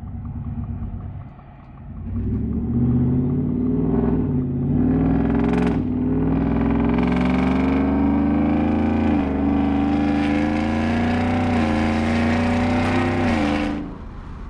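Whipple-supercharged 5.0 V8 of a 2022 Ford F-150 with catless headers and a straight-pipe exhaust pulling hard under full acceleration, heard from inside the cab. After a lower rumble, it climbs in pitch about two seconds in, dips at each upshift and climbs again, then falls away as the throttle is lifted near the end. The driver calls it the sound of a beast.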